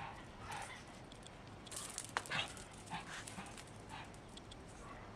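A dog making a handful of short, separate vocal sounds, the strongest cluster about two seconds in.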